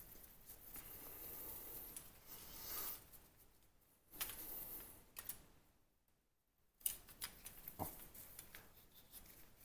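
Cleaning rod pushing a felt patch through a .22 pistol barrel: faint scraping, sliding rubs in two strokes, then small clicks and taps from the rod and parts near the end.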